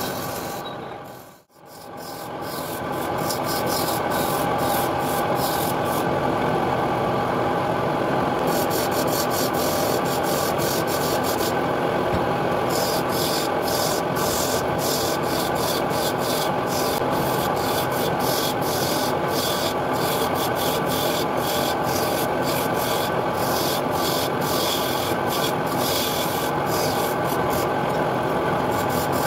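Wood lathe running with a steady hum while a hand-held turning tool scrapes and cuts a spinning wooden blank, with irregular crackling as the cut bites. The sound cuts out briefly about a second and a half in, then returns.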